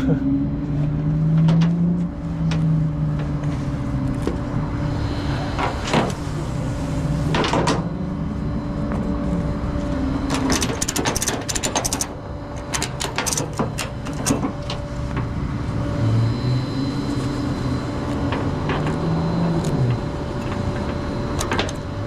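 Flatbed tow truck's engine and hydraulics running, a steady whine over an engine note that rises and falls, with a run of metal clanks and rattles in the middle.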